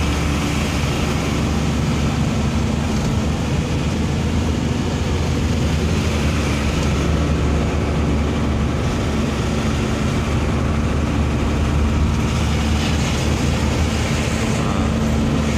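1988 Mitsubishi Fuso truck's diesel engine running steadily at cruising speed, heard from inside the cab with road and tyre noise.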